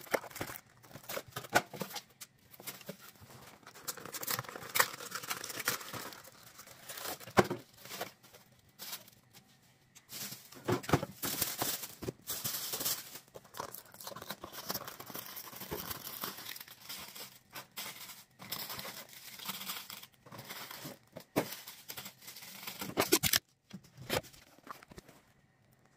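Thin plastic grocery bags rustling and crinkling as food is unpacked, with scattered short knocks and clicks of packages being handled and set down.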